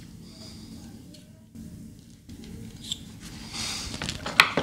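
Hands handling a black plastic stove plug and its small clamp screws: light rattles and scrapes, with one sharp click near the end.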